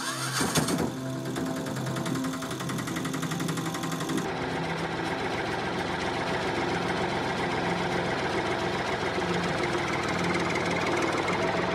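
Tractor engine sound effect: a steady, rapid knocking chug as the tractor drives along. The tone changes slightly about four seconds in.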